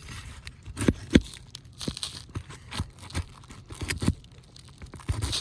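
A roofing nail being worked out from under asphalt shingles: a string of sharp metal taps and knocks, loudest about a second in, with the gritty scraping and crinkling of the shingle being lifted.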